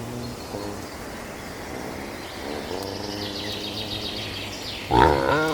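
Birds chirping over steady outdoor background noise, with a loud farm-animal call breaking in near the end.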